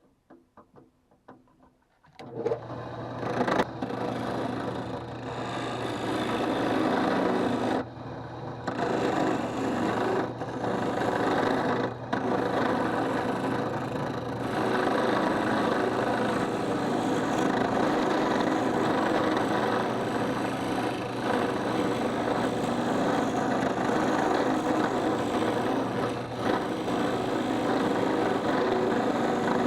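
Drill press started about two seconds in and running steadily as a makeshift wood lathe, its motor humming under the scraping of the spinning wooden workpiece being worked by hand.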